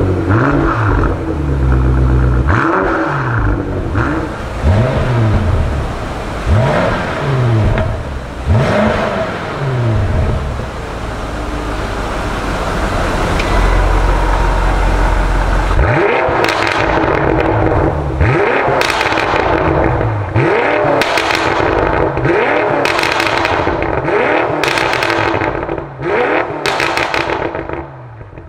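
BMW M5 F90's twin-turbo V8 revved through an Fi Exhaust valvetronic catback: a series of throttle blips, a rev held steady for several seconds, then about eight sharp revs with the exhaust valves open, each followed by pops and crackles as the revs drop.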